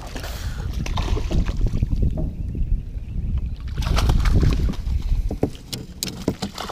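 Wind rumbling on the microphone in an open canoe, with scattered light clicks and knocks, mostly between about four and six and a half seconds in.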